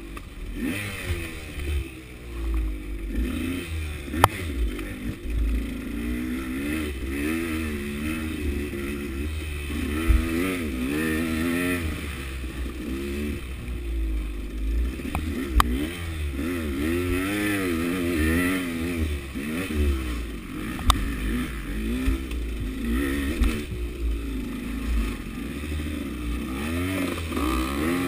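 KTM 200 two-stroke dirt bike engine revving up and down without pause as it is ridden over rough trail, with a few sharp knocks along the way.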